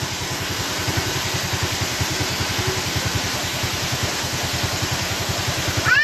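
A small engine idling with a rapid, even pulsing, over the steady rush of a small waterfall. A brief high-pitched call comes right at the end.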